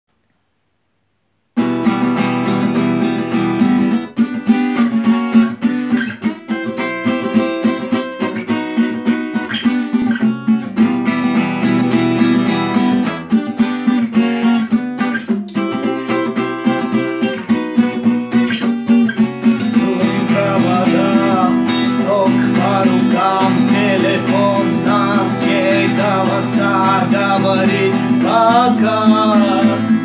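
Steel-string acoustic guitar strummed in a steady rhythm, coming in after a second or so of silence. About two-thirds of the way through, a man's voice joins, singing the melody over the strumming.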